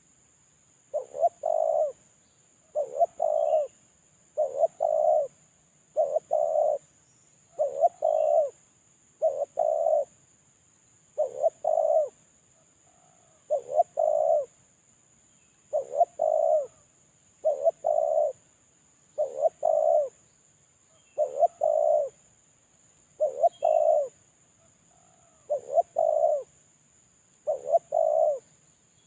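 Spotted dove (terkukur) cooing over and over, one phrase of two or three short notes about every two seconds.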